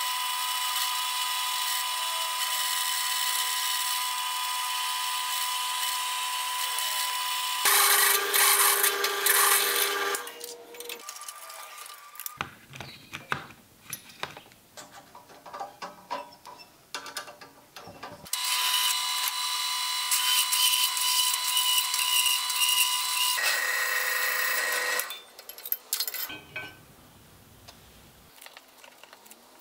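Drill press motor running steadily while a twist bit drills holes through a thick steel plate, in two long bouts that each end in a louder stretch of cutting. Between the bouts come quieter clicks and rattles of drill bits being handled and changed.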